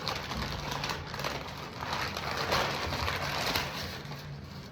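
Rustling and crackling of takeout food packaging being handled: containers, lids and paper moved and opened, with small clicks and crinkles, fading near the end.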